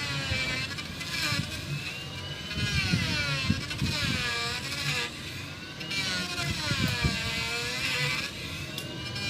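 A motor running with its pitch repeatedly falling and rising every second or two, with irregular low knocks underneath.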